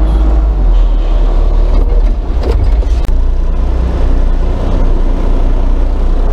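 Front loader's diesel engine running with a steady low drone, heard from inside the cab. The sound drops out for an instant about three seconds in.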